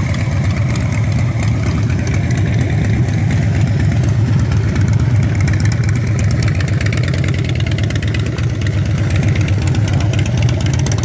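Harley-Davidson V-twin cruiser engine running loud and steady at idle and low revs while the bike is manoeuvred slowly.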